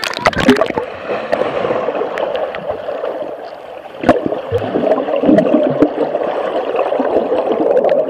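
Pool water churning and bubbling, heard muffled through a microphone held underwater, as a swimmer kicks past in a stream of bubbles. A few sharp clicks stand out, one about four seconds in.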